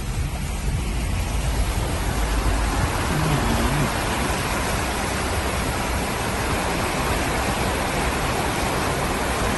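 Toyota Hilux pickup wading through floodwater: a steady rush and hiss of water thrown up by the tyres, growing louder about two seconds in.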